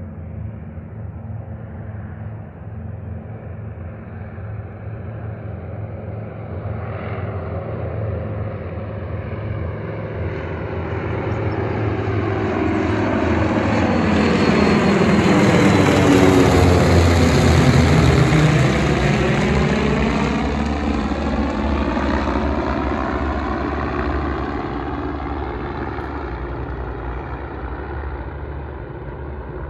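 Formation of ten Van's RV light aircraft led by a Yak-55 passing by, many piston engines and propellers together. The sound builds to its loudest about halfway through, then fades as the formation moves away.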